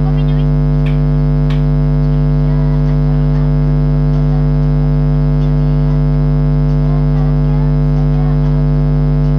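Loud, steady electronic buzz made of several fixed pitches, unchanging throughout, with a couple of faint clicks.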